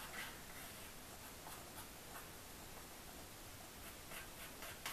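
Faint, soft scratching of a small eyeshadow brush stirring liquid foundation and loose translucent setting powder together on the back of an eyeshadow palette.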